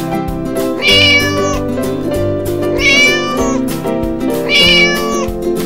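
Cat meowing three times, about two seconds apart, over background music.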